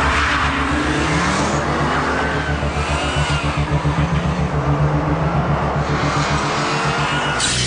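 Audi Urquattro's turbocharged five-cylinder and Subaru Impreza WRX STI's turbocharged boxer engine revving hard as the two cars accelerate from a standing start. The engine pitch climbs and drops back several times as they change gear.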